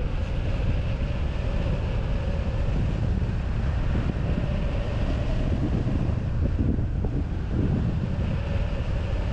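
Airflow rushing and buffeting over the microphone of a wing-mounted camera on a hang glider in flight, a steady gusting rumble with a faint steady whine over it.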